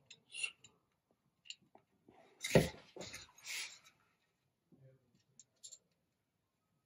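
Small metal washers and a nut clicking and scraping as they are fitted by hand onto an M4 threaded bar on a homemade variable capacitor, with one louder knock about two and a half seconds in.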